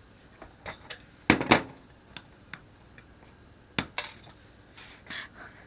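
Small hard parts of a disassembled BlackBerry Curve 8520 phone clicking and knocking as they are handled and set down. There is a loud double knock about a second and a half in, another sharp knock near four seconds, and lighter clicks between.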